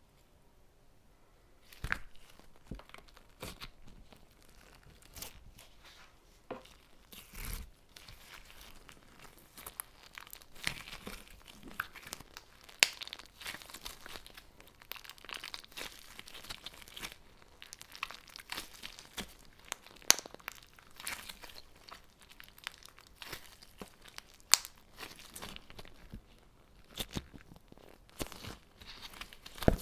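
Hands working a crunchy toy play material such as slime, giving irregular close-up crackling, crinkling and crunching with scattered sharp clicks, starting about two seconds in.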